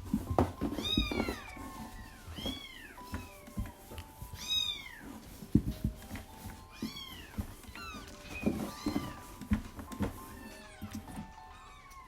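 Young kittens, about a week old, mewing: several high-pitched mews, each rising and falling, spaced a second or two apart. Faint background music plays underneath.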